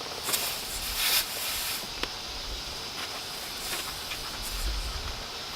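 Compressed air hissing through an air chuck into a John Deere 410C backhoe's large rear tire as it is inflated from a shop compressor; the hiss is steady, a little stronger in the first couple of seconds.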